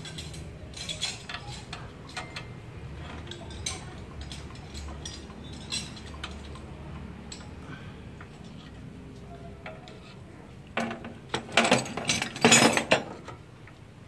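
Wrench clinking on the bolts of a Giga dump truck's clutch pressure plate as it is bolted up after a new clutch lining is fitted. Scattered light metal clicks, then a louder flurry of clinks and rattles about eleven seconds in.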